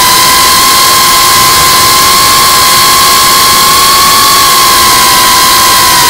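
GEPRC Cinelog35 cinewhoop drone in flight: its brushless motors and ducted propellers give a loud, steady high whine over a rushing hiss. The pitch holds nearly level and dips slightly near the end as the throttle eases.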